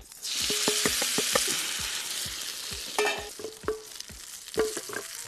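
Food sizzling in hot oil in a pan, loudest just after the start and easing off over the next couple of seconds, while a utensil stirs it with repeated sharp knocks and clinks against the pan.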